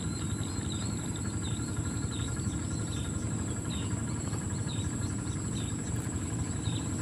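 Steady insect chorus in a flooded rice field: a constant high trill, with a short chirp repeating about twice a second, over a low steady rumble.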